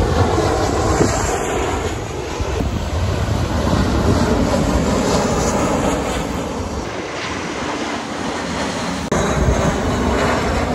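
Jet airliners passing low on final approach: a steady, loud rumble of turbofan engines. The sound changes abruptly about seven seconds in and again about nine seconds in, at cuts between passes.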